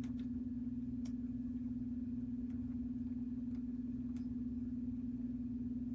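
A steady low hum, one unchanging tone, with a few faint clicks about a second in and again about four seconds in.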